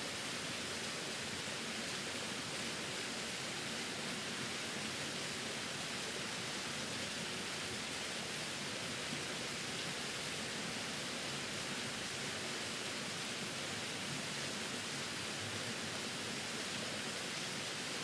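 Small waterfall running steadily: an even, hissy rush of falling water with no breaks.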